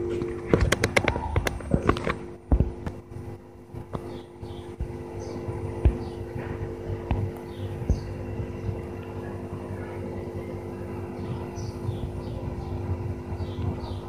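A steady machine hum, with a quick run of sharp clicks and knocks in the first two and a half seconds and a couple of single knocks later.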